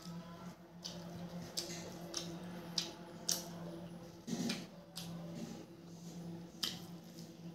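Rice and moong dal being squished and mixed by hand on a steel plate: a string of short wet squishes and clicks, with a heavier squelch about four seconds in. A steady low hum runs underneath.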